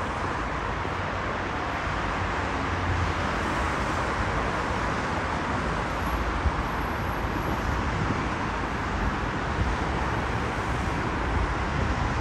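Steady city road traffic: a continuous hiss of passing vehicles with a low rumble underneath.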